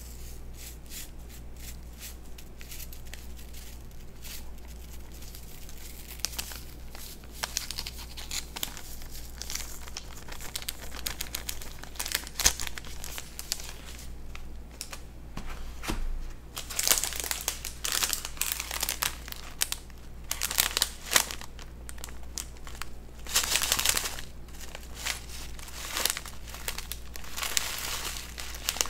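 Paper and plastic food wrappers being handled and crinkled close to the microphone, in irregular crackly runs with louder bursts of crumpling about two-thirds and four-fifths of the way through, over a steady low hum.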